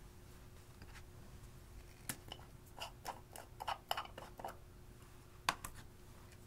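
A run of small plastic clicks and taps as a cosmetic glitter-gel jar is handled and its screw lid twisted off, then one sharper click about five and a half seconds in.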